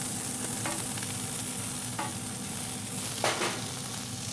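Smash burgers and buns sizzling on a cast iron griddle, with a metal spatula scraping across the iron three times, the loudest about three seconds in.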